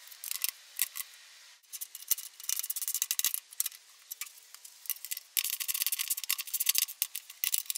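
Socket ratchet clicking in irregular runs as bolts are run down to fasten an aluminum floor panel to the buggy's steel tube frame.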